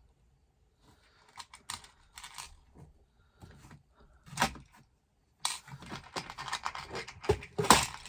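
Hand work on vehicle wiring: scattered clicks and snips, a sharp snap about four and a half seconds in, then a dense crackling rustle with a louder snap near the end, as wires and hand tools are handled.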